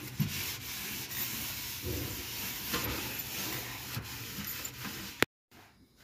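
A damp sponge scrubbing the plastic inside walls and floor of a microwave oven in uneven strokes, wiping off steam-softened grease stains. The rubbing cuts off suddenly about five seconds in, leaving faint room tone.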